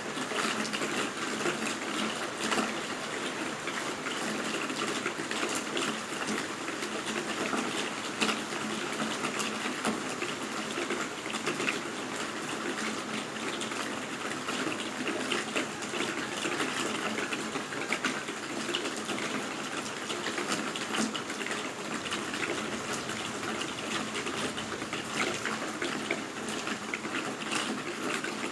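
Heavy rain pouring: a steady, dense rush of water with many small splashes and spatters.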